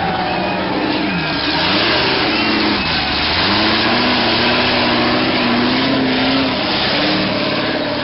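Off-road rock-crawler race buggy's engine revving hard as it climbs over boulders. The revs rise and fall in quick blips, dip about three seconds in, then climb and hold a steady high note before easing off near the end.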